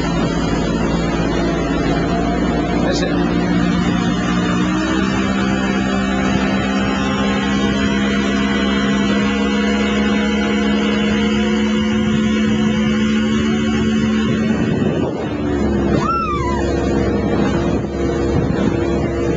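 Motorboat engine running steadily under way, with water and hull noise underneath. The engine note steps up about five seconds in and shifts again with a brief dip about fifteen seconds in.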